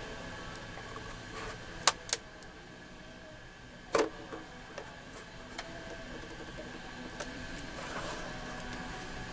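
Hands working on an old salvaged sound system: a few sharp clicks and knocks, two close together about two seconds in and one at four seconds, with lighter ticks over a faint steady hum.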